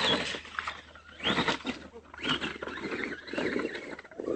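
Axial AX10 RC rock crawler's electric motor and gears whining in about four short throttle bursts, some rising in pitch as it backs up and drives off.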